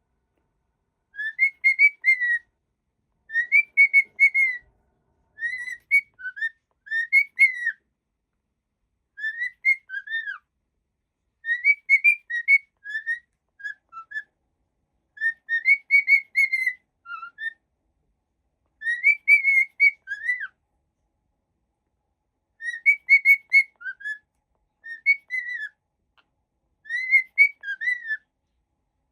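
Cockatiel whistling a short, clear tune of a few notes, repeated about ten times with brief pauses between phrases.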